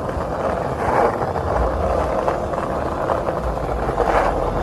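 Skate wheels rolling on street pavement: a steady rushing rumble.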